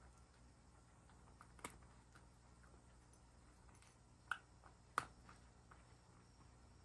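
A cat eating dry kibble from a ceramic bowl: a few faint, sharp clicks of the pieces knocking against the bowl and its teeth, the loudest two about four and five seconds in.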